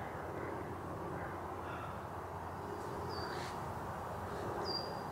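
Woodland ambience: a steady low outdoor hiss, with a small bird's short, high call heard twice, about three and four and a half seconds in.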